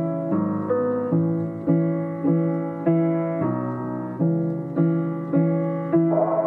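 Slowed-down piano intro: chords struck evenly about every 0.6 seconds, each fading before the next. Near the end a hissing, shimmering swell comes in.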